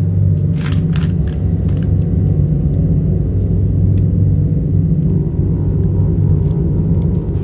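A steady low rumble, with a few short knocks about half a second in, a second in and again about four seconds in.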